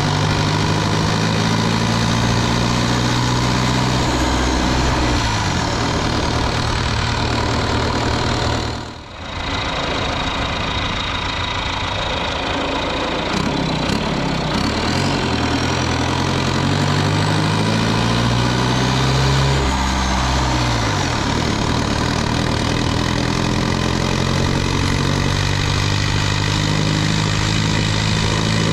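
Cummins 4BT 3.9-litre turbo-diesel four-cylinder pulling the truck along the road. Its revs climb over several seconds, then drop back at each gear change, three times, under steady wind and road hiss.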